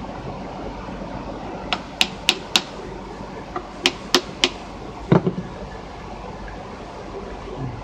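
Sharp taps of hand tools on a small pump engine's ignition coil during gap adjustment: two quick runs of four clicks, then a heavier knock about five seconds in, over a steady low hum.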